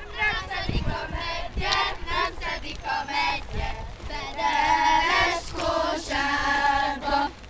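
A group of women and girls singing a song together, their voices holding long notes near the middle and again near the end.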